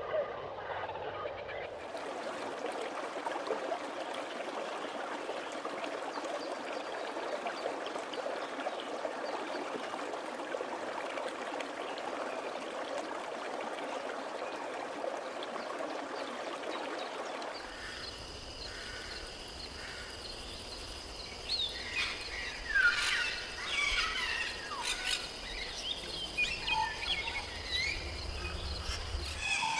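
Rainforest nature sounds: a steady rushing noise for about the first half, then a sudden change to a low hum with two steady high whining tones and a run of bird chirps and calls.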